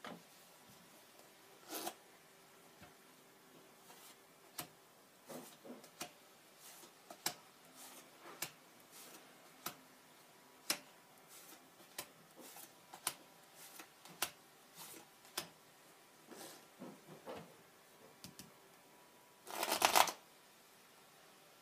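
Playing cards being dealt one at a time onto a cloth-covered close-up mat, each card a short sharp snap, spaced about half a second to a second apart. Near the end comes a quick, louder flurry of card sounds as the deck is handled.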